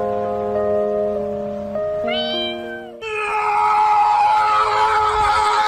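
Background music of steady, stepped notes, then, about three seconds in, a husky's loud, drawn-out whining howl whose pitch sinks slowly.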